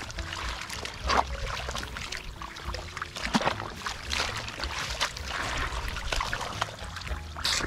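Splashing and sloshing in shallow muddy water, with irregular squelches of wet mud as hands and knees move through a flooded rice paddy, over a low steady rumble.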